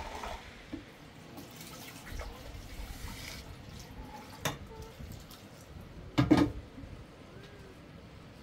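Kitchen cooking sounds: liquid being poured and handled around pots, with a brief loud clatter about six seconds in.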